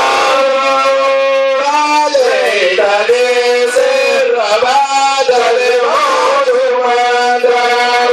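Male devotional chanting: long held notes that slide and curl up and down in a melismatic line, with no break.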